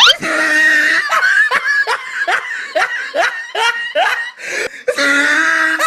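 Meme laughter sound effect: a quick upward sweep, then a string of short rising laughs, about two or three a second.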